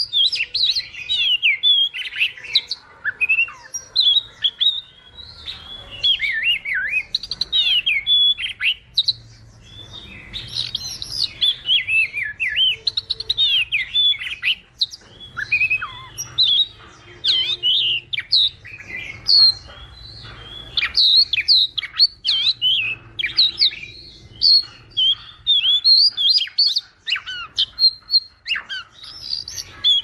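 Songbirds chirping and twittering: a busy run of quick, high notes that sweep up and down, broken by a few short lulls.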